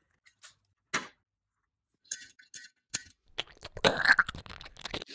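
Scattered light clicks and taps of tools being handled, with a sharp click about a second in. About four seconds in, a brief burst of scraping noise as a drill bit is dipped and worked in a tin of cutting compound.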